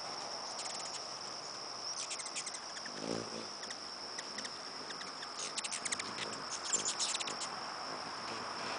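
Hummingbirds chattering at a nectar feeder in short bursts of rapid high chips, loudest near the end, with a brief low wing whir about three seconds in. A steady high-pitched insect trill sounds underneath.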